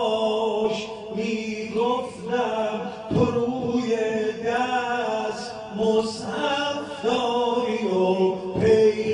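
A man chanting a Shia devotional recitation into a microphone, in a melodic line of long held, wavering notes broken by short breaths.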